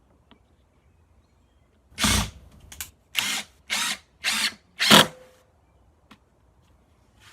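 Impact driver with a Robertson bit driving a 2-inch screw. One half-second run about two seconds in, then about five short trigger bursts, roughly twice a second, to seat the screw; the last burst is the loudest.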